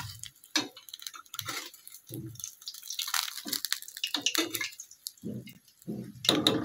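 Hot frying oil crackling and dripping as fried spring rolls and samosas are lifted out of the pan with metal tongs onto a plate, in short irregular spurts.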